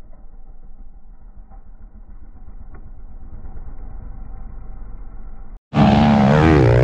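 Dirt bike engine running, heard muffled at first. Near the end, after a sudden cut, a much louder, clearer dirt bike engine revs with a rising and falling pitch.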